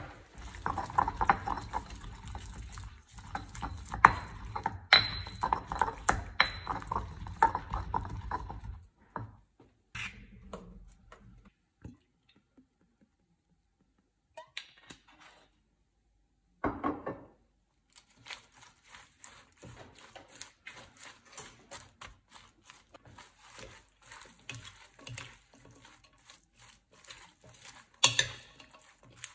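Kitchen handling sounds: cookware and utensils clinking and knocking. A dense, continuous stretch fills about the first third, and scattered short taps and clicks follow.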